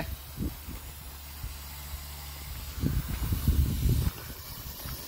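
Steady hiss of steam from a 5-inch gauge live-steam locomotive boiler just under 100 psi, leaking at its fittings. About three seconds in, a low rumble comes in for about a second.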